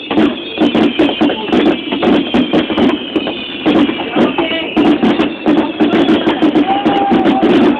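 Music playing, overlaid by many sharp pops and crackles that come thick and fast throughout, typical of aerial fireworks bursting.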